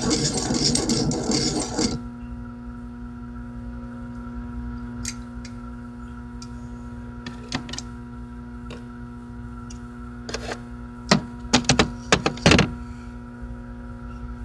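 A small metal bowl rings with a steady tone at several pitches while a knife blade is worked in it. A rough, scraping noise stops about two seconds in, and a handful of sharp taps of metal on metal follow, most of them close together near the end.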